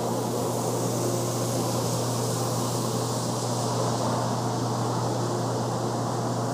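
Steady drone of factory machinery: a constant hiss with a low, even hum underneath.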